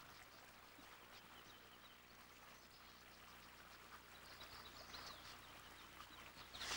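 Near silence: faint outdoor ambience, with a few faint bird chirps in the second half.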